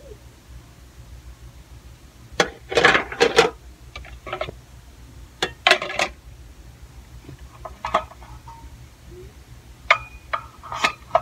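Kitchenware being handled, clattering and clinking in three short clusters: about two and a half seconds in, around six seconds, and near the end, some clinks ringing briefly.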